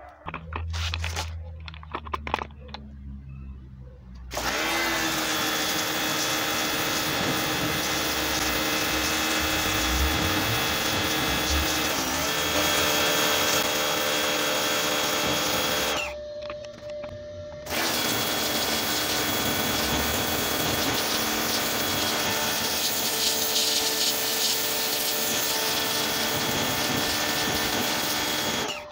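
Koblenz 1650 psi electric pressure washer running: a steady motor-and-pump whine with the hiss of its water jet blasting brick. After a few clicks and a low hum it starts up about four seconds in, stops briefly about two-thirds of the way through, then runs again.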